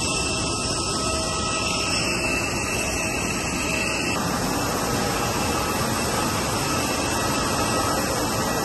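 Steady loud rush of a jet airliner's turbine on the apron, with thin high whining tones over it.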